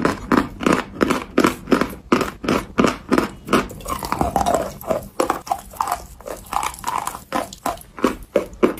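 Close-miked crunching and chewing of chalk in the mouth, about three crunchy chews a second.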